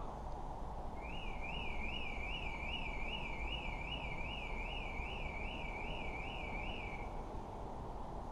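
An electronic alarm tone warbling up and down about twice a second. It starts about a second in and stops about six seconds later, over a steady low rumble.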